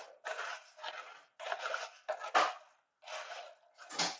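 Copper spiral prismatic still-column packing being stirred with a plastic spoon in a plastic jug of citric acid solution, the pieces shifting against each other and the jug in short strokes, about seven in four seconds.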